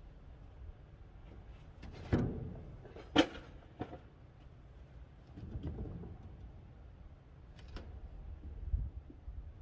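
A few scattered knocks and clunks, the two loudest about two and three seconds in, over a low steady rumble.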